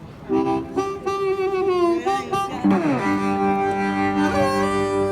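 Busker's instrumental music starting about a third of a second in: long held notes, often several at once, with a downward slide in pitch near the middle.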